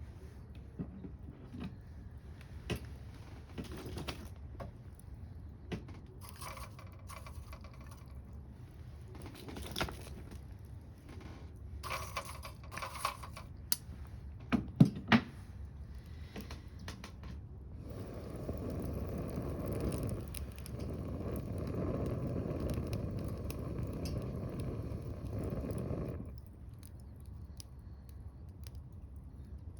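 Wood fire in a small secondary-combustion camp stove, crackling with scattered light pops and a few sharp loud pops about halfway through. Near the end a steady rushing noise runs for about eight seconds, then cuts off suddenly.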